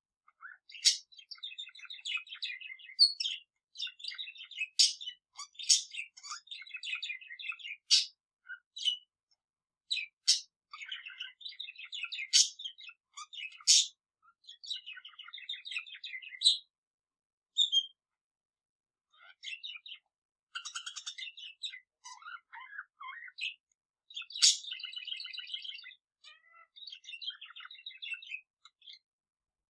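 Budgerigar warbling: a fast, scratchy chatter cut by sharp, loud chirps, in phrases of a few seconds with short pauses between.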